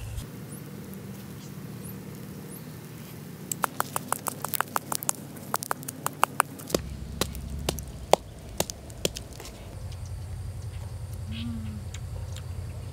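A wooden pestle knocking in a coconut-shell bowl as chili and spices are pounded: a run of quick, irregular sharp knocks lasting about five seconds, starting a few seconds in, over a low steady hum.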